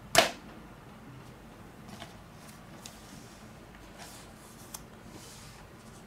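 One sharp click just after the start, then a few faint clicks and soft rustles of something being handled.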